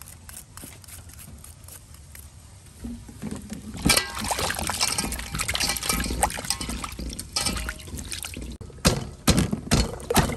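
Carrot and cucumbers being washed by hand in water in a stainless steel basin: irregular splashing and sloshing starting about three seconds in, followed by a few knocks near the end.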